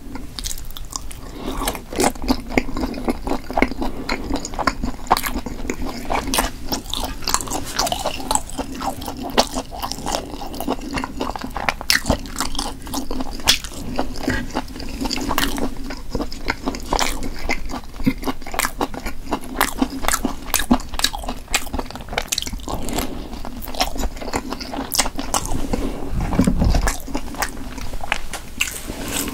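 Close-miked chewing and biting of Korean blood sausage (sundae), a dense run of small mouth clicks and smacks. A brief low rumble comes near the end.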